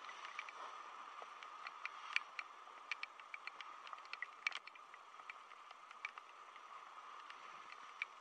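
Raindrops striking the camera, heard as irregular sharp ticks, several a second, over a steady hiss of surf breaking on the rocks.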